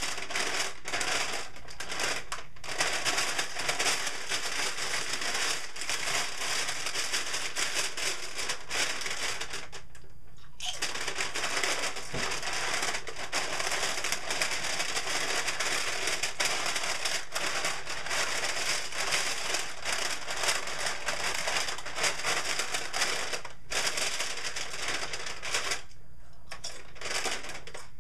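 A SunChips compostable chip bag being handled and crinkled: a dense, continuous crackling that stops briefly about ten seconds in and again near the end.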